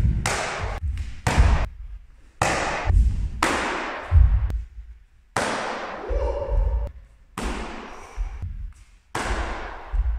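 Kicks landing on a handheld kicking paddle: sharp slaps with a low thud, each trailing off in the hall, about seven strikes at uneven intervals. A short vocal sound comes near the middle.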